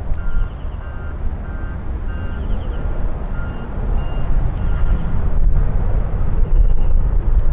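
Low rumble of a jet airliner at the airport, growing louder after about five seconds. Faint, short high tones repeat over it.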